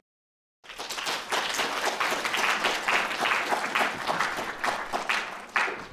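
Audience applauding, a dense patter of many hands clapping that starts abruptly about half a second in and dies down near the end.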